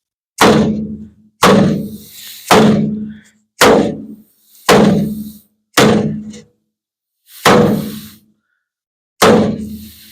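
Hammer blows struck through a wooden body block into the dented front sheet metal of a 1950 Ford F1, working the dent out. There are eight blows at roughly one a second, each a hollow thunk with a short ring from the panel.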